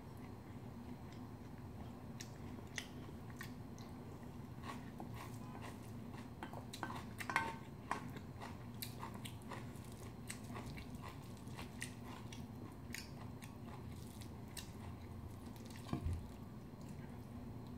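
A person chewing food close to the microphone, with many small wet mouth clicks, while a spoon clinks and scrapes against the bowls. The clinks are loudest about seven seconds in, and near the end a click comes with a dull knock, all over a steady low hum.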